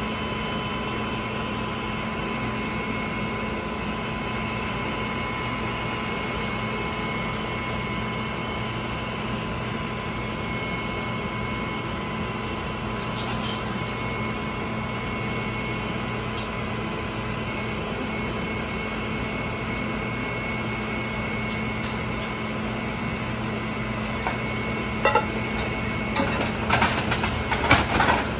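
Truck-mounted Crushr dumpster compactor running with a steady hum and whine as its spiked roller drum is lowered. In the last few seconds, cracking and snapping begin as the drum bites into the wooden furniture in the dumpster.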